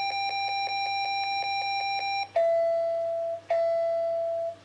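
Nerf electronic dartboard target's speaker sounding a steady electronic tone that flutters slightly, then, about two seconds in, two long lower beeps of about a second each: the two-beep signal that the next dart must hit zone 2.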